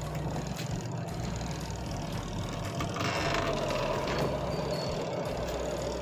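Repaired spin-dryer motor of a Haier twin-tub washing machine running with a steady hum. A short rush of noise comes about three seconds in.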